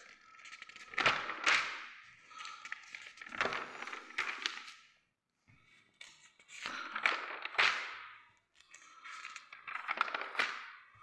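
Magazine pages rustling and crinkling as they are handled and turned, in several separate swishes with a short pause about halfway.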